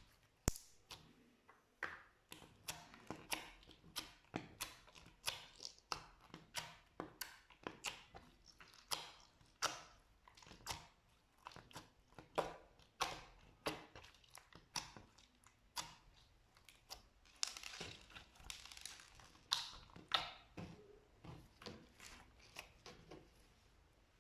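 Slime being pressed and squished by hand, giving an uneven run of sticky clicks and small pops, a few a second, with a longer crackling stretch a little past halfway.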